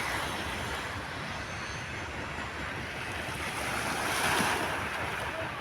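Sea water washing and lapping, with one wash swelling a little about four seconds in, and wind rumbling on the microphone.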